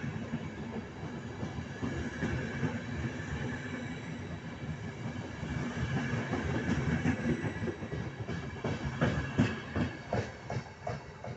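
Trenitalia Intercity Notte passenger coaches rolling past slowly as the train pulls out of the station, wheels rumbling on the rails. Near the end comes a quick run of wheel clacks over the track joints.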